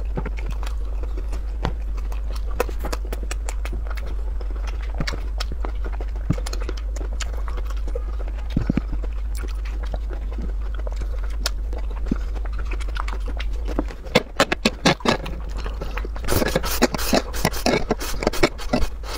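Close-miked eating sounds: wet chewing and mouth clicks over a steady low hum, growing louder about fourteen seconds in, then slurping of noodles in the last few seconds.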